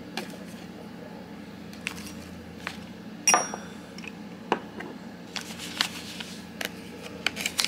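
Small objects handled on a tray: scattered light clicks and knocks, with one sharper clink that rings briefly about three seconds in as a small bottle is set down. Near the end a zip-lock plastic bag is handled, with a run of small crackles and clicks.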